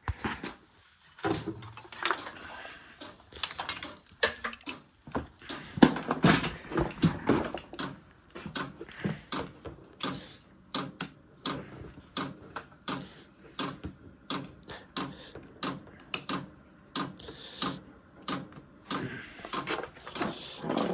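Irregular clatter of knocks and clicks from objects being moved and handled, as someone rummages through things looking for a battery charger.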